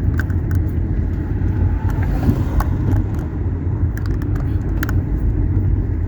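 Steady low rumble of a car driving along town streets, heard from inside the cabin: road and engine noise.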